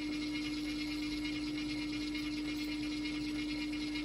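Kinco AC servo motor driving a 5:1 gearbox at about 250 rpm, giving a steady whine on one clear tone over a faint high hiss. The whine and vibration come from running with the velocity-loop integral gain (KVI) dropped to zero, before the servo is tuned for the gearbox load.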